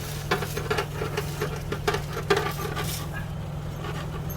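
A steady low mechanical hum with many short, light clicks and knocks over it.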